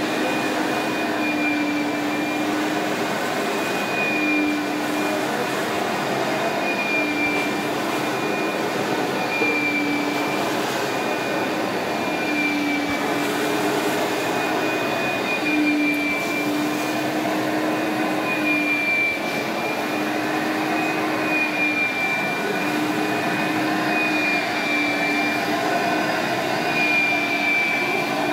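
Carpet-cleaning machine's motor running steadily, with a low hum and a high whine whose pitch wavers every couple of seconds as the load shifts.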